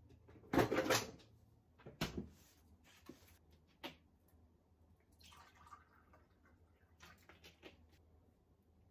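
Kitchen handling sounds: a short rustling clatter about half a second in, a few sharp clicks, then a brief pour of water from a plastic bottle into a glass.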